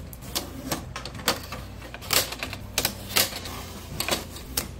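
Blue shipping tape being peeled off a printer's plastic casing and trays: a run of short rips and clicks at irregular intervals.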